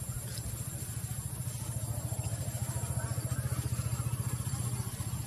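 A small engine running steadily with an even low throb, growing a little louder in the middle.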